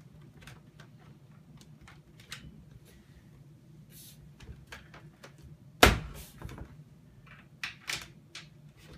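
Plastic parts of a Shark vacuum clicking and knocking as the handle is worked into a tight slot, with one loud knock about six seconds in.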